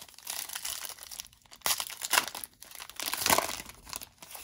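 Foil trading-card pack wrapper being torn open and crinkled by hand: irregular crackling rips, loudest about two seconds in and again about three and a half seconds in.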